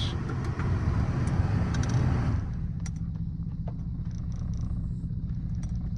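Lexus GS300's inline-six engine running steadily with a misfire, its check engine light flashing; the owner suspects water in the fuel. A hiss over the engine drops away about two seconds in.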